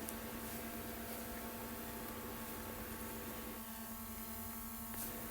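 Faint steady electrical hum over a light hiss, with one faint click near the end.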